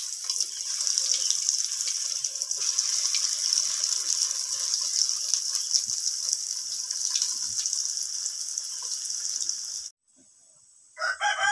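Breadcrumb-coated masoor dal fritters deep-frying in hot oil in a kadai: a steady, loud sizzle with small crackles, which cuts off suddenly about ten seconds in.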